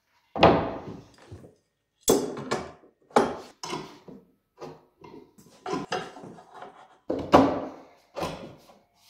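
Wooden router-table fence knocking and thudding against a plywood tabletop as it is set down and shifted into place: a string of separate wood-on-wood knocks, the loudest just after the start and about seven seconds in.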